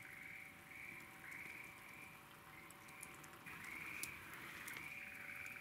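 A chorus of frogs calling at night, faint, with overlapping high calls about half a second each following one another without a break. A faint steady hum lies underneath.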